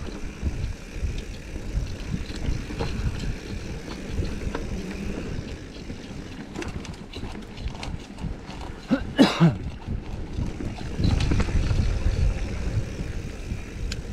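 Mountain bike ridden along a dirt singletrack trail: tyres rolling over the ground, the bike rattling and clicking over bumps and roots, and wind rumbling on the microphone. A short cry cuts in about nine seconds in, and the rumble grows louder a couple of seconds later.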